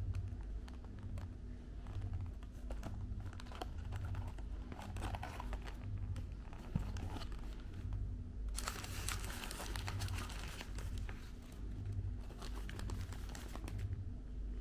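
Paper wrapper and cardboard burger box crinkling and rustling as they are handled and opened by hand, a run of small crackles with a louder stretch of rustling about two-thirds of the way through.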